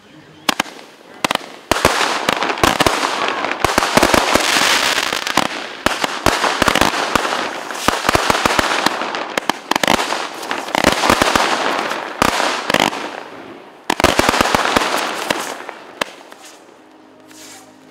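Fireworks going off: a dense barrage of sharp bangs and crackling that swells and falls in waves, starting about half a second in and dying away near the end.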